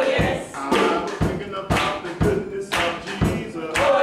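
Gospel choir music with a sharp, even beat about twice a second and voices singing over it.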